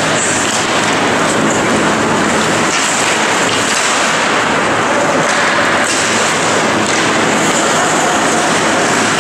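Ice hockey play in an indoor rink: skate blades scraping on the ice and sticks on the puck, merging into a steady noise that echoes around the arena.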